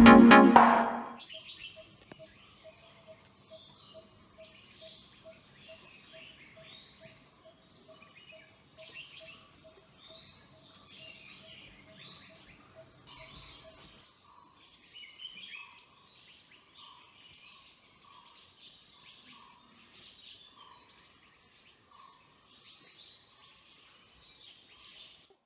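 Several wild birds chirping and trilling together. One repeated note sounds about twice a second through the first half, and another call repeats in the second half.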